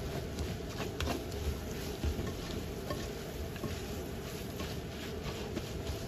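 Chili and dried-shrimp sambal frying with a steady sizzle while a spatula stirs it around the pan, giving scattered light scrapes and taps.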